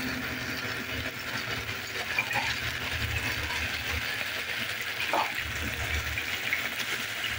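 Wooden spatula stirring and scraping rice with cumin and whole spices in ghee inside an aluminium pressure cooker, a steady rustling scrape with faint ticks of grains against the metal. The rice is being toasted in the fat before the water goes in.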